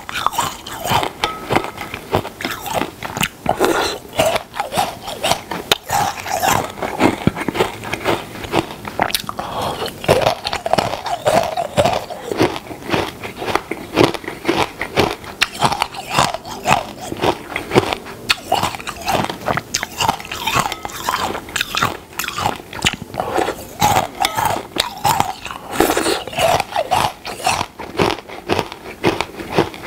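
A person biting and chewing hard, crunchy food close to the microphone, with many crisp crunches following one another irregularly.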